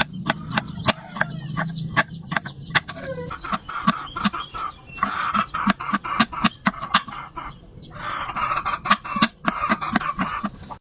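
Chickens clucking, over a steady run of sharp knocks and clicks, several a second.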